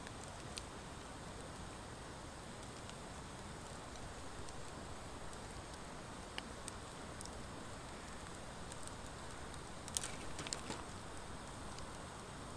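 Wood fire of driftwood and dry hardwood burning: a steady soft hiss of flames with scattered sharp crackles and pops, a quick cluster of louder pops about ten seconds in.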